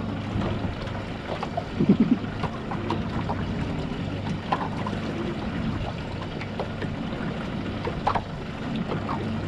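Fishing boat's engine running steadily, a low hum under a wash of water and wind noise, with a few short knocks.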